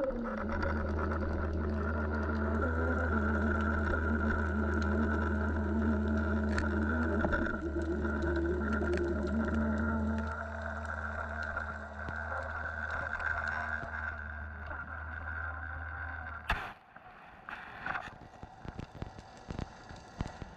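Steady mechanical hum with a low drone and a couple of steady tones, heard through water by a descending underwater camera. About three-quarters of the way through it cuts off with a sharp knock, and scattered knocks and clicks follow as the rig settles on the sandy bottom.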